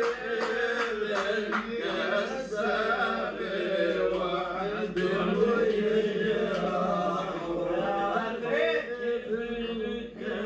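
A man singing a line of Lebanese zajal poetry in a long, wavering chant, holding and bending drawn-out notes.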